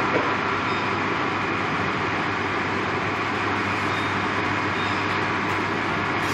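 Steady machine noise of a solar panel production line: an even hiss with a constant low hum underneath.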